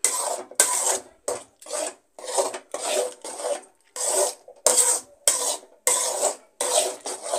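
A metal ladle scraping and stirring through a thick chana dal and jaggery filling in a metal kadai, in regular strokes about every half second. The filling is being cooked down until it thickens.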